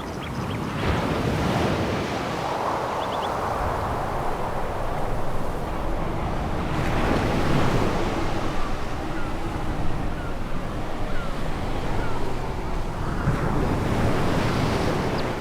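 Sea waves breaking and washing up a pebble beach, swelling about three times, roughly one wave every six seconds.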